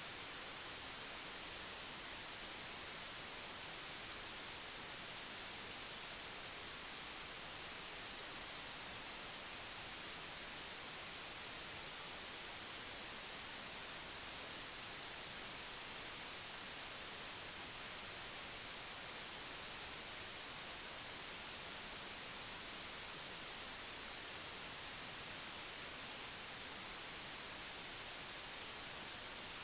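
Steady, even static-like hiss, brightest in the high end, with no changes or other sounds standing out.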